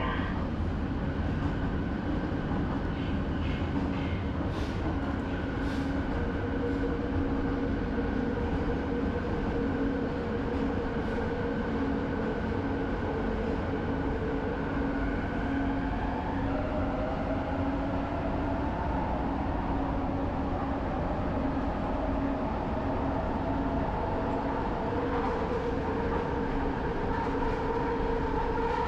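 Inside the cabin of a Kelana Jaya line LRT train running on its linear induction motors: steady rolling noise with a motor whine. The whine changes pitch about 16 seconds in and then slowly rises.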